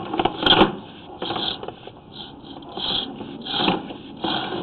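Sewer inspection camera's push cable being pulled back out of the pipe: irregular knocks, scrapes and rattles, a few each second.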